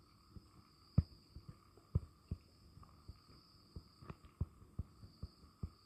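Stylus tapping and clicking on a tablet's glass screen during handwriting: a string of short, irregularly spaced clicks over a faint steady electronic hum.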